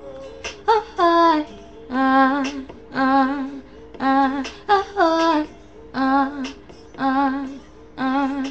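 A woman singing short wordless notes with a wobble in them, about one a second with short gaps, over a held backing chord.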